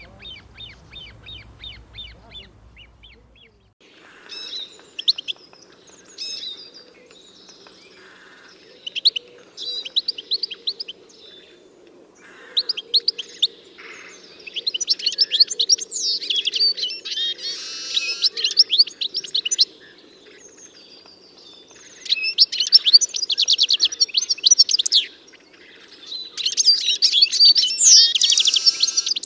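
Wild songbirds singing. A quick run of repeated chirps fades away over the first few seconds. Then come bursts of rapid trills and warbled phrases a few seconds long, over faint steady background noise.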